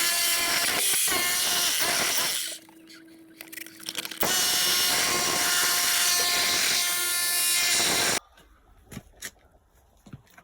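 Jackhammer running in two long bursts, about two and a half and four seconds, with a short pause between. It stops abruptly near the end.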